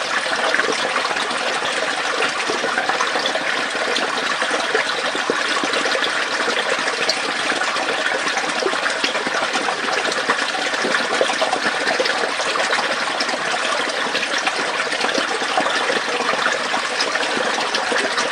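Small stream of water flowing through a pipe or tube, a steady, even rush of running water.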